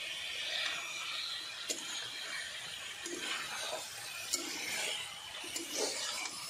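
Potato and pointed gourd pieces sizzling in spiced masala in a metal kadhai while a steel spatula stirs them, scraping and clinking sharply against the pan about three times. This is the slow stir-fry stage that cooks the masala into the vegetables.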